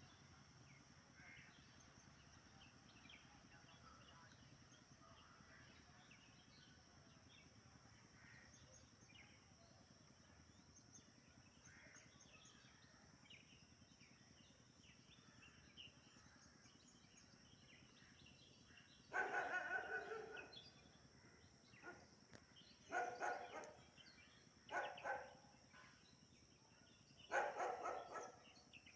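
Oriental magpie calling: faint scattered chirps at first, then four loud harsh bursts of rapid calls about two-thirds of the way in, over a steady high-pitched tone.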